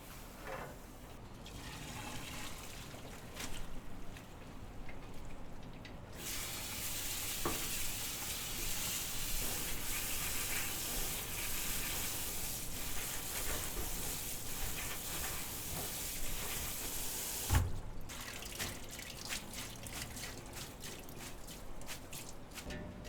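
Kitchen tap running steadily for about eleven seconds, with clicks and clatter of handling before it and after it, and a single knock just as the water stops.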